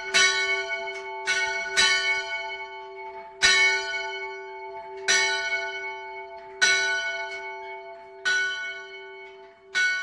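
A bronze church bell swinging in its steel frame, the clapper striking about every one and a half seconds. Each stroke rings on into the next over a steady hum, and the strokes grow weaker near the end.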